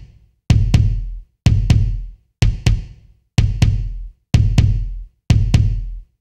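Kick drum played alone, a replacement kick sample layered with a second, more live-sounding kick sample. It plays a repeating double beat, two hits about a quarter second apart roughly once a second, each a sharp click with a long low boom.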